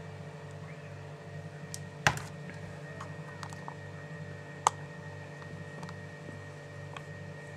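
Steady low mechanical hum with a slow pulse of about three beats a second, broken by two sharp knocks, one about two seconds in and one a little before the middle.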